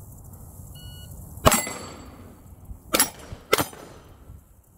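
A shot timer beeps once, then a 9mm Glock 45 pistol fires three shots: one about a second and a half in, and two more close together about three seconds in. A steel target rings briefly after the first shot.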